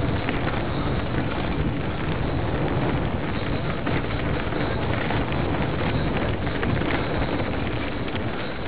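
Steady rushing noise of wind buffeting the microphone, mixed with the rustle and crunch of moving fast over dry fallen leaves on a dirt trail.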